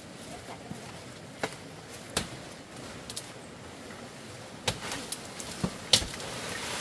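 Leafy storm-fallen branches being pulled and dragged: twigs snapping and leaves rustling, with about half a dozen sharp cracks, the loudest about six seconds in.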